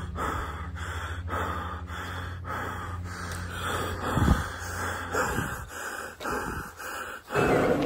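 Heavy breathing in uneven, repeated breaths, over a steady low hum that stops about halfway through.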